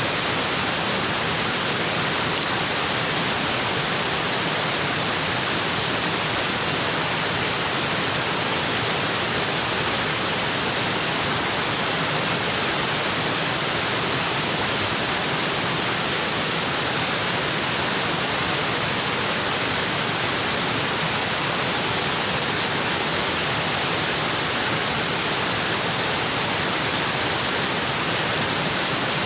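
Waterfall in a tropical forest: water pouring down onto rocks in a steady, unbroken rush.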